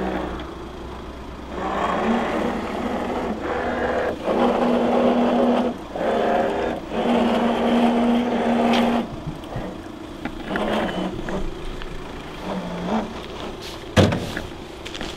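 Carp fishing bite alarm sounding a run in long unbroken tones that break off and resume several times as a fish takes line. Near the end there is a sharp knock.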